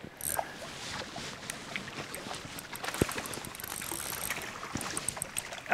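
Water splashing and sloshing as a hooked trout struggles at the surface at the edge of the bank, with scattered faint clicks and one sharper knock about three seconds in.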